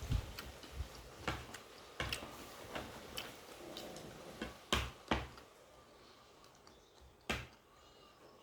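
Close-up sounds of a person eating a meal of ground beef with vegetables, rice and beans: irregular chewing and mouth clicks with sharper taps, a few louder ones past the middle.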